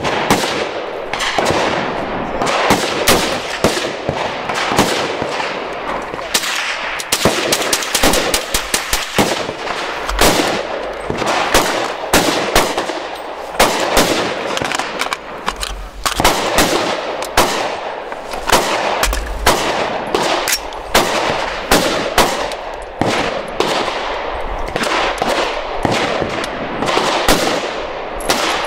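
Gunfire from several guns on a range firing line: sharp cracks, irregular and overlapping, several shots a second at times, with no break.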